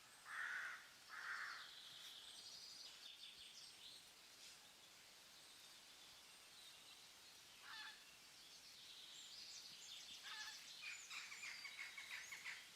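Faint forest ambience with birds calling: two short, rough calls in the first two seconds, scattered chirps, then a quick run of chirps near the end.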